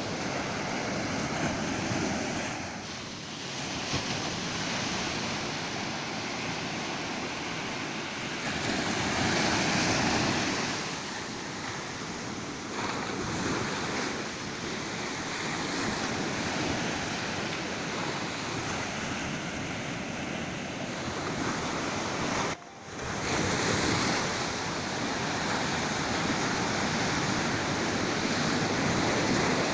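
Ocean surf breaking and washing up a beach in swelling waves of noise, with a short sudden dropout about three-quarters of the way through.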